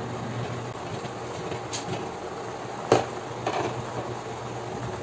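Chicken broth boiling in a pot under a glass lid, with a steady low hum. About three seconds in, there is a sharp clink as the glass lid is lifted off the pot, and a smaller clatter half a second later.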